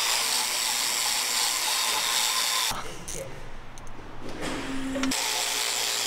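Electric angle grinder with a brush wheel scrubbing the deck surface of a BMW X6M V8 engine block, a steady high whirring scrape of bristles on metal. It breaks off a little under three seconds in and starts up again about five seconds in.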